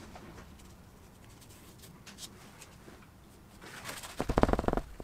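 Faint scratching of a paintbrush working over watercolour paper, then, from about four seconds in, loud rapid knocking and rubbing close by.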